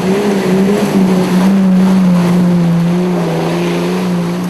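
Off-road 4x4's engine running hard at steady high revs: one even drone that sinks a little about halfway through, with a rushing noise alongside it.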